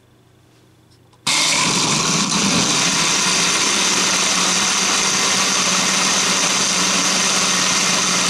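Countertop blender switched on about a second in, its motor running steadily at speed as it blends a thick shake of bananas and sunflower seeds.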